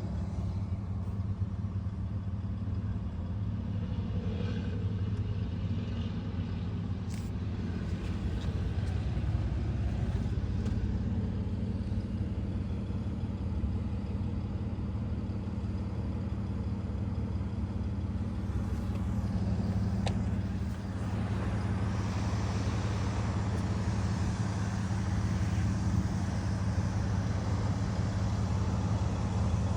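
2018 Ford F-150 engine running steadily, recorded for the rattle that the owner takes for a timing chain rattle. A hissier, brighter noise joins in about two-thirds of the way through.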